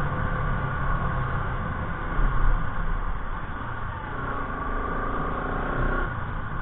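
Motorcycle engine running while riding on the road, under a steady low rumble.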